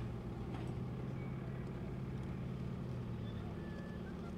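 A vehicle engine running nearby, a steady low drone that drops away about three and a half seconds in.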